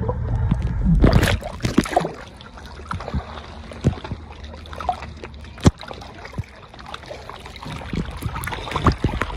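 Sea water sloshing and splashing around a camera bobbing in and out of the water. It is muffled and rumbling while under, splashes as the camera breaks the surface about a second in, then laps with scattered sharp drips and pops.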